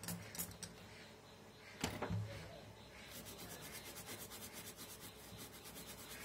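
Small brush scrubbing a circuit board wet with isopropyl alcohol: a fast, faint, scratchy run of strokes that starts about three seconds in. It follows a few sharp clicks in the first two seconds.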